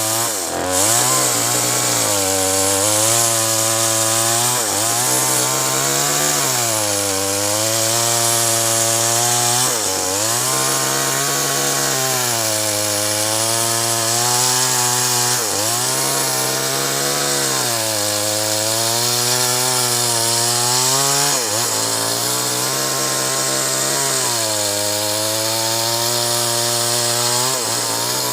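Chainsaw engine running at high revs while cutting acacia wood, its pitch dropping under load and picking up again every few seconds as the chain bites into the timber.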